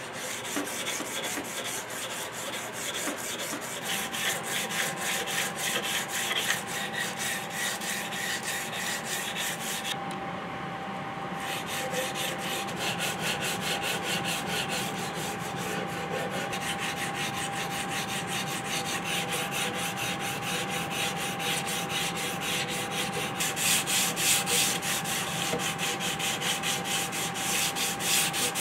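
Fine-grit sandpaper (about 220–250 grit) rubbed by hand along a wooden flintlock rifle stock in quick back-and-forth strokes, with a brief pause about ten seconds in.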